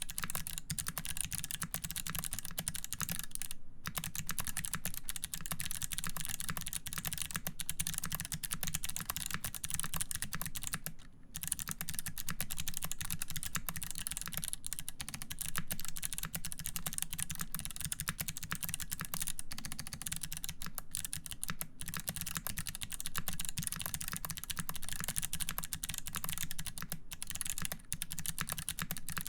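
Continuous fast typing on a mechanical keyboard with lubed Kailh BOX White clicky switches, an aluminum plate and GMK keycaps: a dense stream of crisp key clicks. There are brief pauses about four and eleven seconds in.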